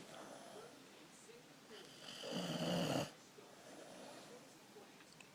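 Snoring: one long snore about two seconds in, lasting a little over a second, between quieter stretches.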